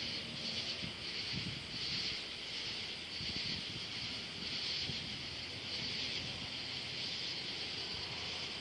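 A night chorus of insects, a high pulsing buzz that swells about once a second, over a steady low background rumble.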